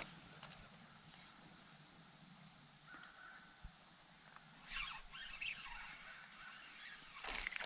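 Insects droning steadily at one high, even pitch, with a few short calls about five seconds in and again near the end.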